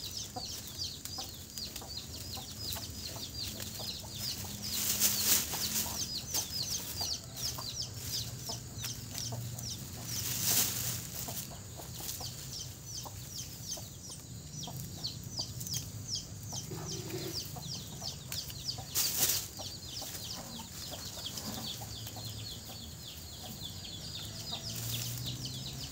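Chickens clucking, with a rapid high chirping running throughout. A plastic sack rustles loudly three times as lemongrass stalks are stuffed into it.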